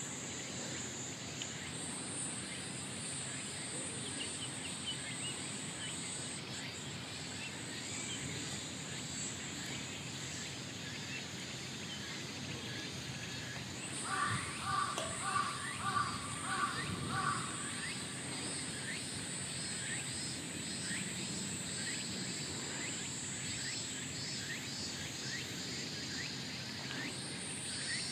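Insects droning steadily at a high pitch. About halfway through, an animal, likely a bird, gives a quick run of about six short calls.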